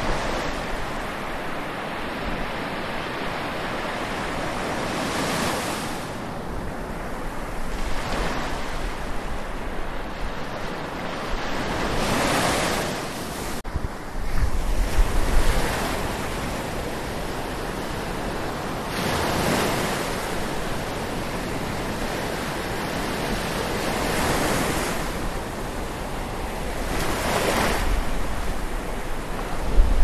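Ocean waves lapping on the shore, the surf swelling in a broad wash every few seconds. Low rumbles of wind on the microphone come in around the middle and again at the end.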